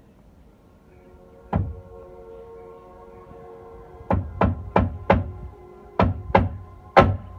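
Hammer driving nails into timber floorboards: a single sharp knock about a second and a half in, then a run of seven quicker blows in small groups near the end.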